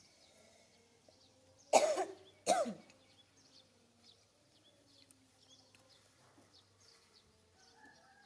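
Two short coughs less than a second apart, over faint bird chirps.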